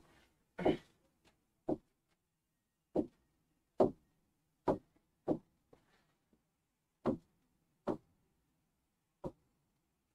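Fingers tapping on an interactive touch-screen display: about ten sharp, short taps, irregularly spaced roughly a second apart.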